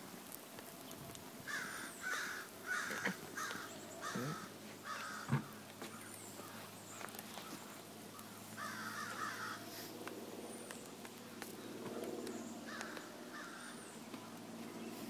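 Faint, harsh bird calls given in short series: a run of about five calls between one and a half and three and a half seconds in, then a few more scattered later.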